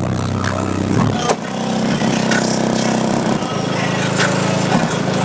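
Two Sundown Audio HDC3 18-inch subwoofers playing deep, sustained bass notes that change pitch a few times, heard from outside the vehicle, with a buzzing rattle riding on the bass.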